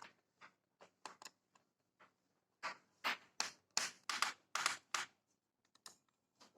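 Hands working on a laptop's case: scattered clicks and scratches, then a quick run of about eight short, harsh scrapes in the middle.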